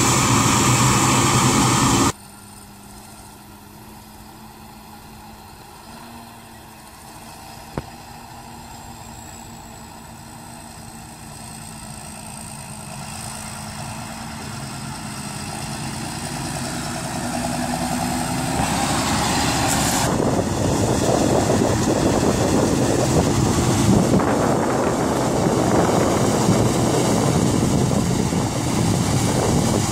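Heavy farm machinery engines at harvest. A loud running engine cuts off suddenly about two seconds in to a distant hum, which then grows steadily louder over the next fifteen seconds or so as a machine comes closer, and runs loud after that. There is a single short click about eight seconds in.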